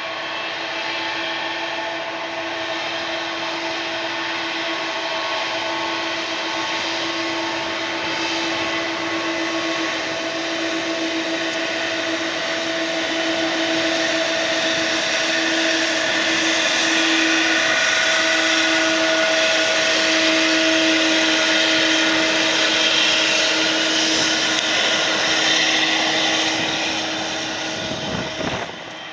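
A Boeing 777's Pratt & Whitney PW4000-series turbofans run as the airliner rolls past. A steady, humming mid-pitched drone ('vōn') sits under a faint metallic whine. It grows louder as the aircraft draws level and cuts off abruptly near the end.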